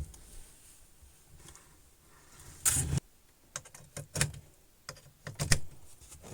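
Handling noise as an LED TV is turned around on a bench: scattered knocks and clicks, with a short scrape about three seconds in.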